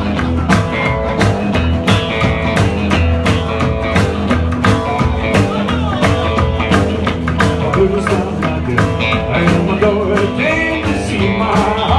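Rock and roll band playing the instrumental intro of a blues song: guitar over a steady drum beat and bass.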